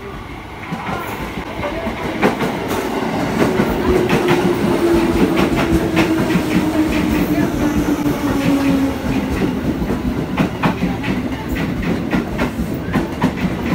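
KRL Commuter Line electric train pulling into the platform, getting louder over the first few seconds. Its wheels clack over the rail joints, and a whine falls slowly in pitch as the train slows.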